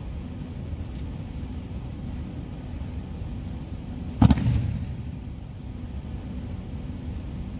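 A judoka thrown onto tatami mats and landing in a breakfall: one sharp slap and thud about four seconds in, the loudest sound here, over a steady low background rumble.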